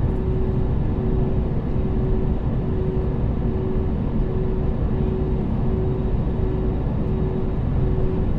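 Jet airliner on the ground holding before takeoff: a steady low rumble with a constant hum over it.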